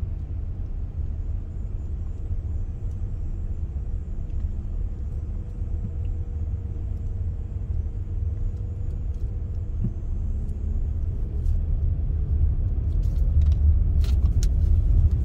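Inside-the-cabin noise of a vehicle driving slowly: a steady low engine and road rumble that grows louder near the end, with a few faint clicks.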